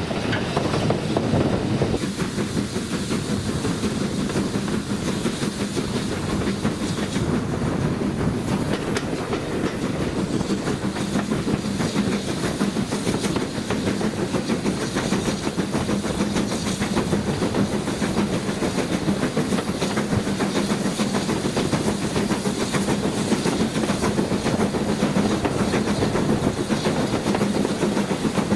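Steam-hauled passenger train running along the line behind BR Standard Class 4 2-6-4T tank locomotive 80080, heard from an open carriage window just behind the engine: steady running noise of wheels on the track.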